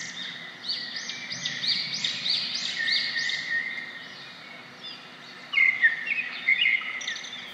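Wild birds singing: one bird repeats a high rising-and-falling note about three times a second for a few seconds. Near the end a shorter cluster of lower chirps follows, over a faint steady background hiss.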